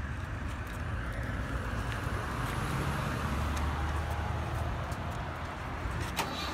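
Plastic wheels of Bruder toy trucks being pushed across rough concrete: a steady rolling rumble and hiss that swells in the middle, with a couple of sharp plastic clicks near the end.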